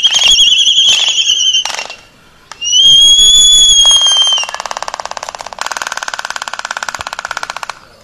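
Pair of Laysan albatrosses calling during their courtship dance: a wavering whistled call, then a second whistle that rises and falls about three seconds in, followed by a fast, even clatter of bill-clacking lasting a few seconds.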